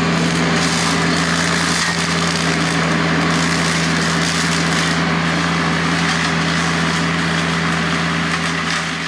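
Tractor diesel engine and PTO-driven hydraulic power pack running steadily under load, powering a Hardee Brush Tiger hydraulic rotary cutter. The cutter chops through brush and limbs with a continuous crackle and splintering of wood over the steady hum.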